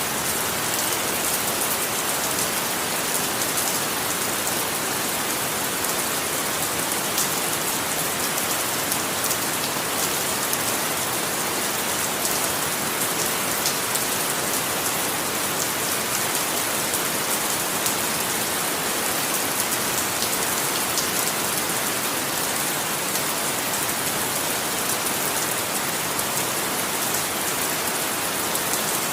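Steady rain falling on a surface, an even hiss with many fine drop ticks and no change in strength.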